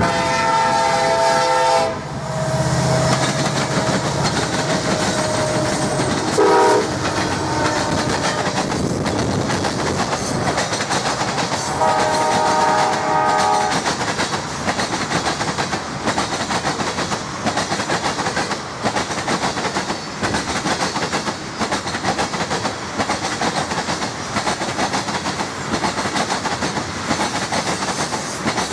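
Freight train passing: the lead diesel locomotive's horn blows several blasts, a short one about six seconds in and a long one about twelve seconds in. Then the ethanol tank cars roll by with a steady rumble and the rhythmic clickety-clack of wheels over rail joints.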